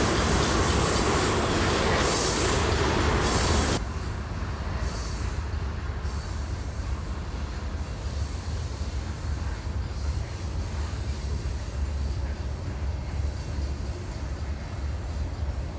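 Freight train rolling by on the rails: loud wheel-and-rail noise that drops off suddenly about four seconds in, leaving a quieter, steady low rumble.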